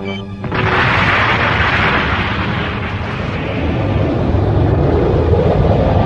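Cartoon explosion sound effect: a long blast starts about half a second in and keeps rumbling, with music underneath.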